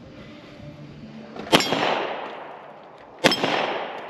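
Two shots from a Beretta Brigadier 9mm pistol, about a second and a half in and again near the end, each followed by a fading echo.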